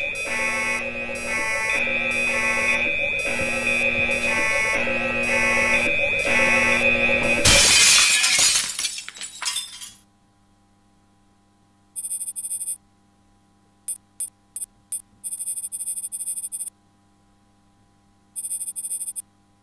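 Electronic alarm sound effect pulsing about once a second over a steady tone, cut off by a loud burst of noise about seven and a half seconds in that dies away within a couple of seconds. After a short near silence come short bursts of high electronic chirping, computer-terminal sound effects of text being printed.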